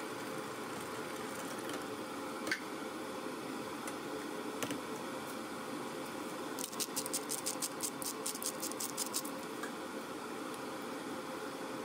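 A pepper mill grinding over the sauce pot, a quick run of dry ratcheting clicks about eight a second for roughly two and a half seconds, past the middle of the clip. Before it come a couple of single sharp clicks over a steady background hiss.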